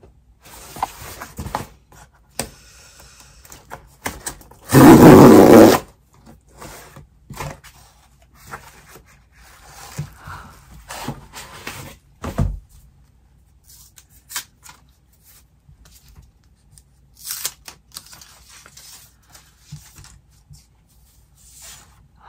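Cardboard mailer box being opened: its tear strip is ripped in one loud tear lasting about a second, about five seconds in. Scattered knocks and scrapes of cardboard being handled follow, with a low thump a few seconds later.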